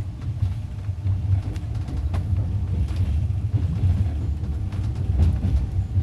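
Passenger train running, heard inside the carriage: a steady low rumble with a few faint clicks and rattles.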